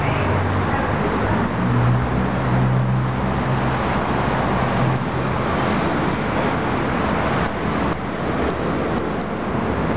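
Vehicle engine running: a steady low hum that swells for a couple of seconds near the start, under a loud, even wash of traffic-like noise, with a few faint clicks in the second half.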